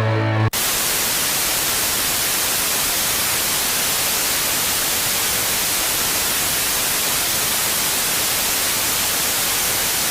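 A rock band's music cuts off about half a second in and gives way to loud, steady static hiss, the white-noise snow of a blank video tape.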